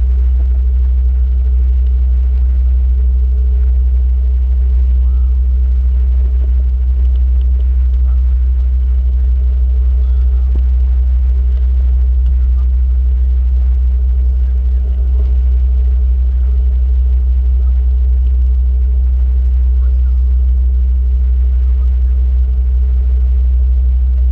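A boat engine running steadily at constant speed, giving a loud, even low drone.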